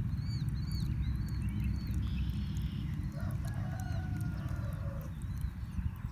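A rooster crows once, starting about three seconds in and lasting roughly two seconds, over small birds chirping and a steady low rumble.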